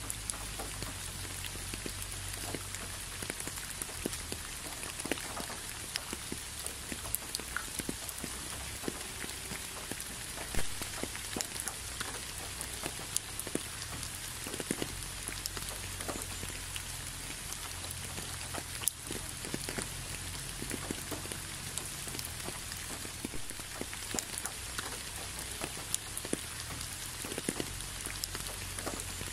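Steady rain: an even hiss with many scattered drops ticking, one louder drop about ten seconds in.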